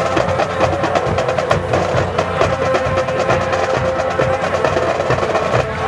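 Marching band playing: fast drumline strokes under sustained brass notes, the drumming breaking off just before the end.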